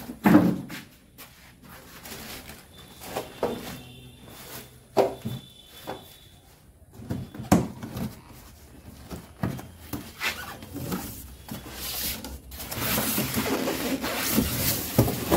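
Cardboard box being handled and opened: flaps scraping and knocking, then polystyrene packing rubbing. A louder stretch of rasping comes in the last few seconds.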